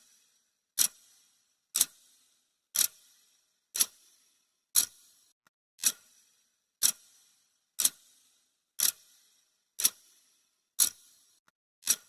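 Clock ticking sound effect: a sharp tick once every second, about twelve in steady even rhythm, each with a short fading tail.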